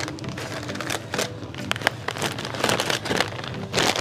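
Foil potato chip bags crinkling and rustling as they are grabbed and pressed against a clip-on microphone: a dense, irregular run of crackles.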